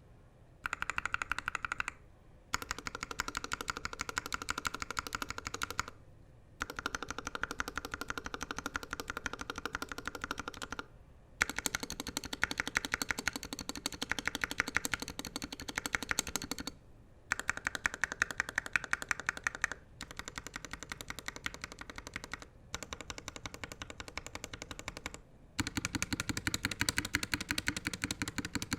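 Fast typing on a NovelKeys NK65 custom mechanical keyboard with a polycarbonate case and lubed Gateron Ink switches: dense runs of rapid key clacks broken by short pauses every few seconds, the last run deeper in tone.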